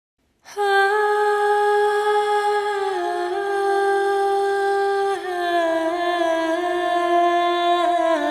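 Wordless female siren-song vocalising: a slow hummed melody of long held notes that step down in pitch a few times, starting suddenly about half a second in after silence.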